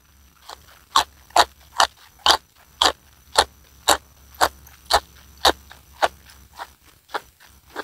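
A person chewing a mouthful of food close to a clip-on microphone: an even run of chewing sounds, about two a second.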